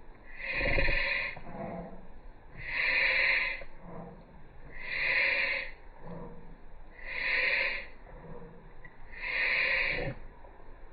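Shiba Inu's laboured breathing: five loud, noisy breaths, each about a second long, coming steadily about two seconds apart. This is the breathing symptom filmed for a vet to tell reverse sneezing from bronchial collapse.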